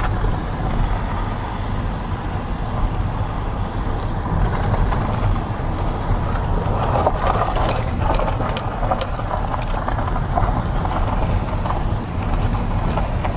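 Car driving slowly, with a steady low engine and tyre rumble and scattered light clicks and rattles around the middle.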